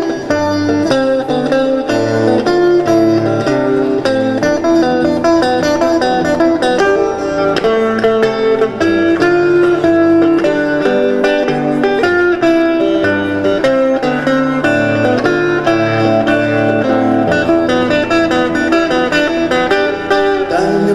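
Live rock song in an instrumental break between sung verses: an electric guitar plays a melodic line over a moving bass line.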